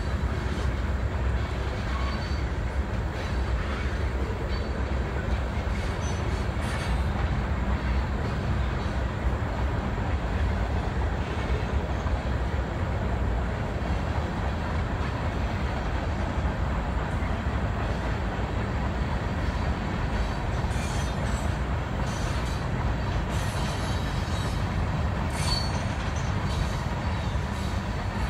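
Ohio Central freight train's cars rolling past: a steady, continuous rumble of wheels on rail, with short high-pitched wheel squeals, mostly in the second half.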